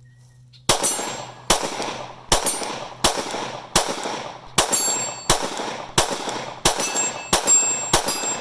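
Glock 48 9mm pistol fired in a steady string, about eleven shots roughly three-quarters of a second apart, beginning about a second in. Several shots are followed by a high metallic ring from hits on the targets.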